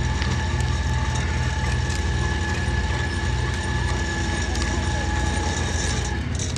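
An engine or motor running steadily with a low hum, plus a thin, steady higher whine that stops about six seconds in.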